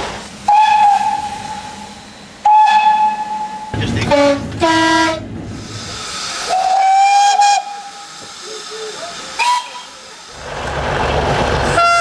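Steam locomotive whistles blowing in a run of separate blasts: three single-note whistles of about a second each, a pair of shorter fuller blasts with several notes at once, and a brief toot, with hiss between them. Near the end the rumble of a passing train builds.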